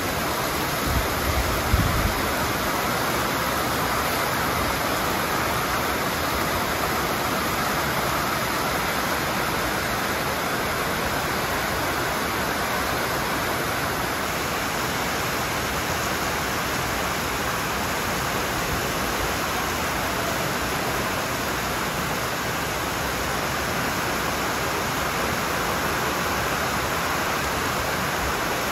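Heavy rain pouring down in a steady, even hiss that holds level throughout. A few low thuds come in the first two seconds.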